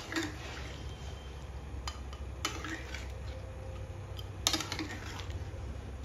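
Steel spatula stirring thick mutton curry in a kadhai, clinking against the pan about four times, loudest about four and a half seconds in.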